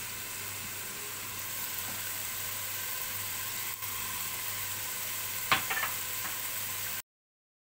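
Diced carrots, green beans and onion sizzling as they sauté in oil in a pot: a steady frying hiss. A sharp click and a few small ticks come about five and a half seconds in, and the sound cuts off suddenly near the end.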